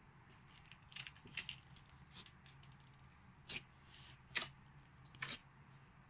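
Slime being squeezed and pressed by hand, giving a run of sharp crackles and pops at uneven spacing, the loudest three about three and a half, four and a half and five and a quarter seconds in.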